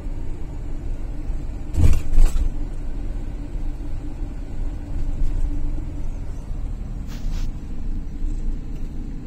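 Camper van driving on a city road, heard from inside the cab: a steady low engine and tyre rumble, with a sharp double thump about two seconds in.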